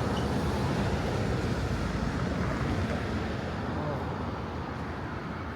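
Street background noise of passing road traffic: a steady rumble and hiss that slowly fades.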